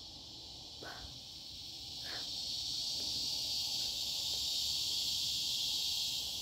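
Steady, high-pitched chorus of insects, growing louder about two seconds in.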